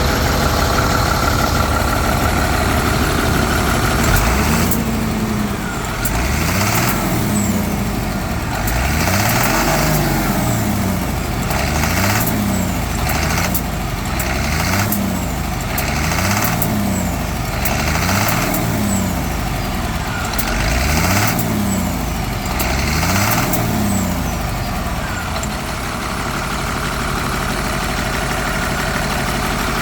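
Truck engine idling, then blipped up and down about a dozen times in quick succession and settling back to idle near the end. It knocks as it accelerates, a sign of internal damage from being run out of coolant.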